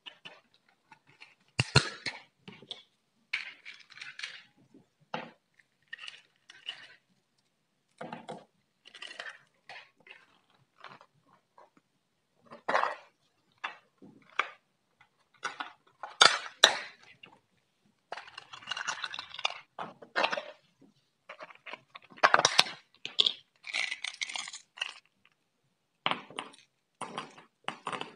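Tools cutting, pressing and scraping kinetic sand, with sharp clicks and clinks as they strike a hard surface, in short irregular bursts with brief pauses between.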